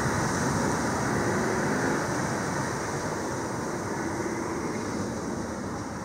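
Steady rushing outdoor background noise with a thin high hiss over it, no single distinct event, gradually fading down in level.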